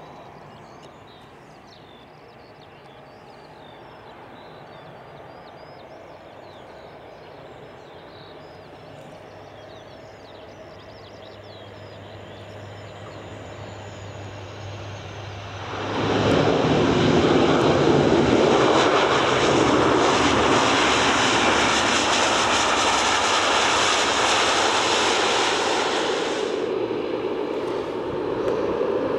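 Bombardier Dash 8-Q400's twin turboprops: a low hum on approach that slowly grows. About sixteen seconds in, just after touchdown, it turns suddenly into a loud roar as the propellers go into reverse pitch to slow the aircraft. The roar eases off about ten seconds later into a lower steady running sound.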